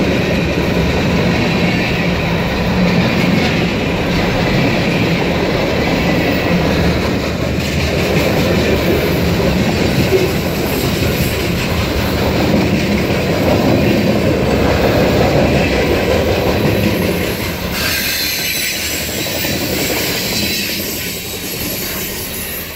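Freight train cars rolling past close by: a steady rumble and clacking of steel wheels over the rail joints, with some wheel squeal. It eases off slightly near the end.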